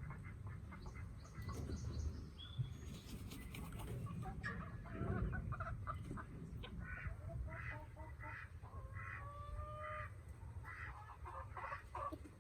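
Backyard chickens clucking, a run of short repeated calls with one longer drawn-out call near the middle, over a steady low rumble.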